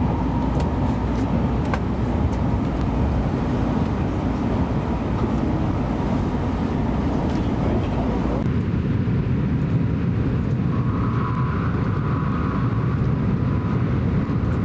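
Steady low rumble of a Shinkansen train in motion, heard from inside the carriage; the higher hiss above it drops away about eight seconds in.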